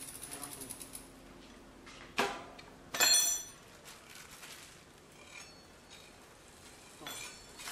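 A small motor running with a rapid pulse and a high whine stops about a second in. Then come sharp ringing clinks of metal or glass, the loudest about three seconds in, with a few fainter ones after.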